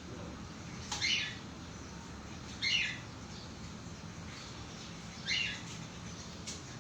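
A bird chirping: three short, high calls, each falling in pitch, spaced about two seconds apart, over a steady low background hum.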